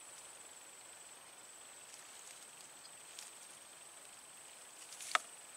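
Insects trilling faintly in one steady high-pitched drone. A few soft ticks sound through it, and one sharp click comes about five seconds in.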